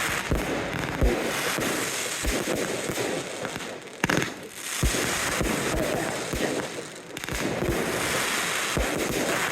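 Aerial fireworks display: a continuous dense crackling hiss of bursting effects, punctuated by a rapid run of low booms from shells bursting, with a sharp, loud bang about four seconds in.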